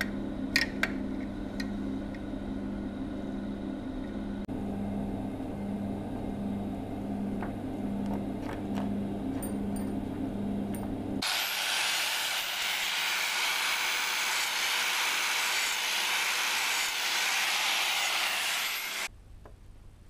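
Hand-held power tool running for about eight seconds as a loud, even hiss that stops abruptly near the end. Before it, a low pulsing hum with a few sharp clicks.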